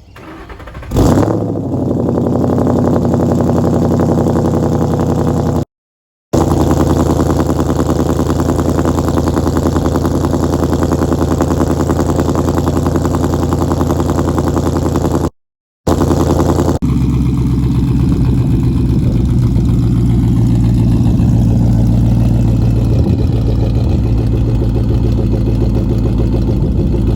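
A 2011 Ford Mustang GT's 5.0 V8, which has a cat delete and a Corsa exhaust, is started up. It catches with a quick rev about a second in, then settles into a steady, loud idle through the exhaust. The idle is tuned with a 'ghost cam' tune for a lumpy sound.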